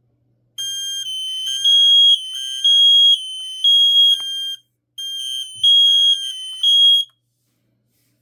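Kidde HD135F alarm sounding on test: loud, high-pitched beeps in the three-beep temporal pattern, three beeps, a pause, then two more, over a fainter beeping tone. It cuts off suddenly about seven seconds in.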